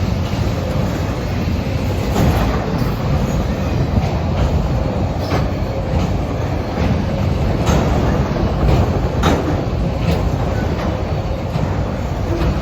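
Norfolk Southern manifest freight train's cars rolling past close by: a steady loud rumble of steel wheels on rail, with irregular sharp clacks as the wheels pass over the track.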